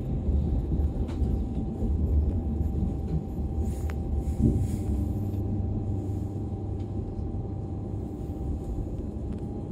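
DB class 425 electric multiple unit running along the track, heard from inside the passenger compartment: a steady low rumble of wheels and running gear with a thin steady whine over it. A few faint clicks, and a louder knock about four and a half seconds in.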